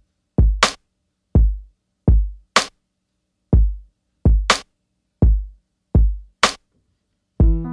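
Background music: a sparse drum-machine beat of kick drum and snare hits with silence between them. Near the end, keyboard chords come in.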